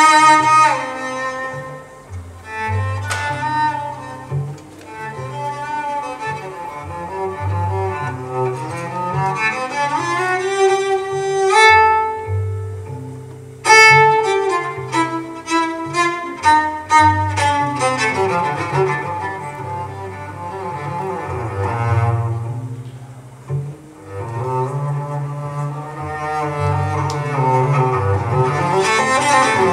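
Solo cello bowed, with melodic lines over held low notes. It slides up in pitch about ten seconds in, then plays a quick run of short detached notes.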